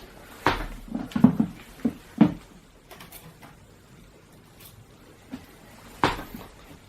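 A handful of sharp knocks and clicks, close together in the first two seconds and one more near the end, as the cordless impact drill and its bit are handled after drilling into concrete; the drill motor is not running.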